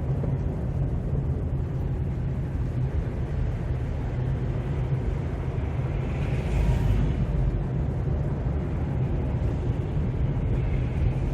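Steady low road and engine rumble heard from inside a moving car, with a brief hiss swelling and fading about six seconds in.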